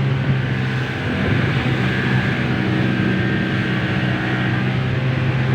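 Boat engine running at a steady speed, a constant low hum with rushing noise.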